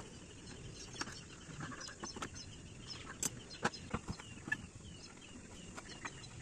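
Faint, irregular metallic clicks and knocks of a hand tool working the bolts of a Wagon R radiator fan shroud, as the fan is moved from the old radiator to a new one. A bird chirps repeatedly in the background, short falling notes about three a second.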